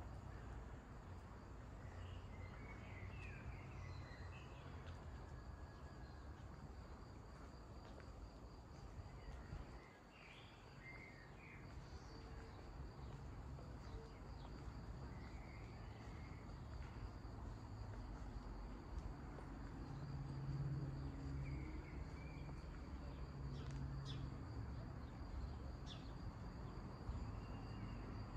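Quiet outdoor ambience: a steady high-pitched insect chirring throughout, with a few faint bird chirps and a low, even background rumble.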